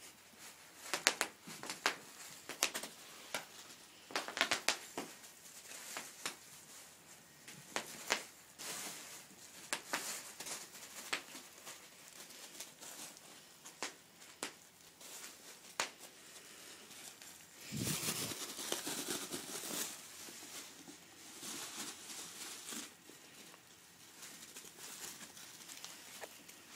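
Plastic bubble wrap crinkling and rustling as ferrets scramble over it, with many sharp clicks through the first half and a louder spell of crinkling about eighteen seconds in.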